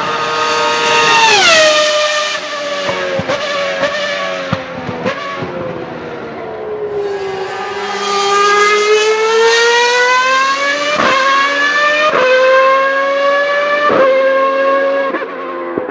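High-revving racing car engine: its pitch drops sharply about a second and a half in and sinks slowly for several seconds, then it accelerates with the pitch climbing steadily. Several sharp cracks break the sound in the second half.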